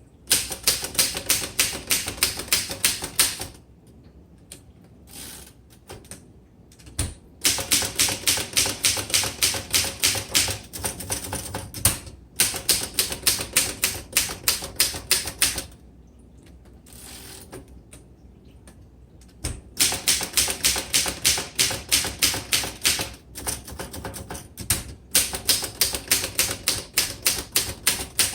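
Keys of a 1926 Royal Model 10 manual typewriter being typed in quick runs, about four strikes a second, each typebar hitting the platen with a sharp clack. The runs break off for a few seconds twice, then pick up again.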